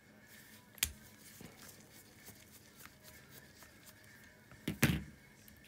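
Screwdriver working a jet out of a 125 cc ATV carburettor's aluminium-alloy body, with one sharp click about a second in and a louder short cluster of knocks near the end.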